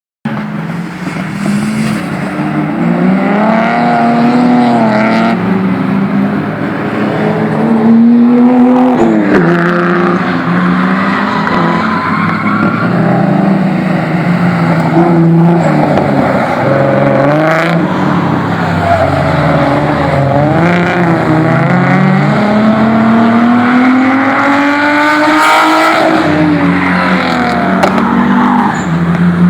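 Nissan RB26 straight-six, run naturally aspirated on six individual throttle bodies in a Fairlady 240Z, revving: the pitch climbs over a few seconds and drops back again and again.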